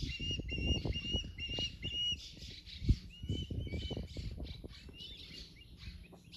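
Osprey calling: a run of short, high whistled chirps, about three to four a second, breaking off briefly near two seconds in and fading after about four seconds. A low rumble runs underneath, and one sharp knock near three seconds in is the loudest sound.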